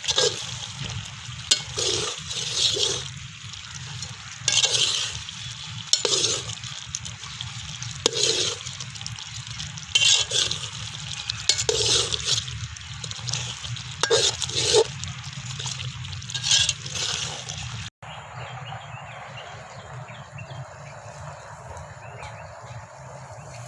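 Spoon stirring quail gravy in a cooking pot: repeated scraping, sloshing strokes about once a second with some clinks. Near the end they stop abruptly and a steady simmering hiss remains.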